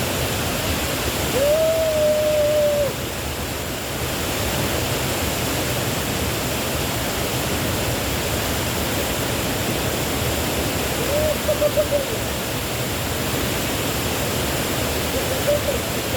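Waterfall pouring into a pool, a steady rushing roar of water. A person's voice cuts through twice: one held call about two seconds in, and a few short calls near the eleven-second mark.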